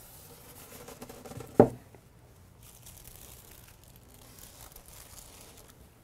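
Protective wrapping crinkling and rustling as it is pulled off a model locomotive, with one sharp knock about one and a half seconds in.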